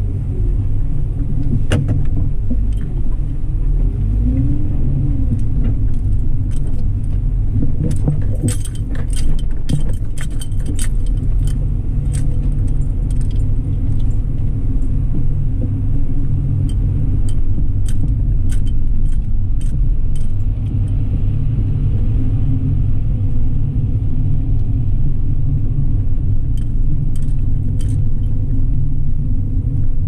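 Steady low rumble of a car's road and engine noise while driving, with scattered light clicks and rattles, thickest about eight to twelve seconds in.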